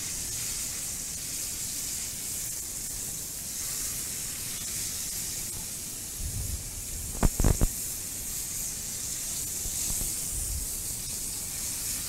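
Beef fillet searing in a hot frying pan: a steady sizzle as the outside browns. About seven seconds in, three quick sharp knocks ring out above it.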